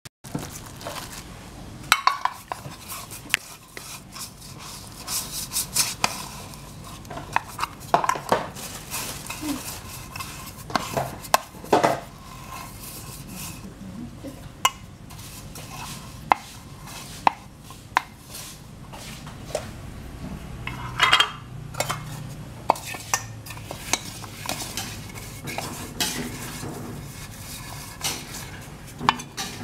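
Stainless steel mixing bowl being handled: irregular sharp clinks and knocks of eggs and utensils against the metal, with stirring and scraping inside the bowl.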